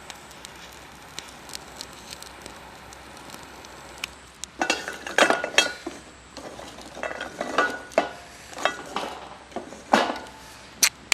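Metal camping gear being handled: a run of irregular clinks and clatters with brief metallic ringing, over a light steady hiss.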